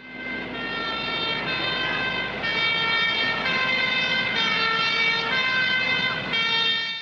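Sustained siren-like electronic tones, several at once, shifting pitch in steps every half second to a second over a steady hissing rush, then cutting off.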